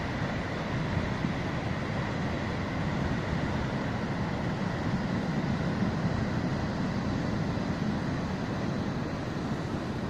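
Steady rush of churning storm-driven sea water surging over the shore, with wind rumbling on the microphone.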